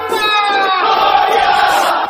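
A crowd's drawn-out shout, one long cry whose pitch falls, then dies into crowd noise, with the drums of the music dropped out.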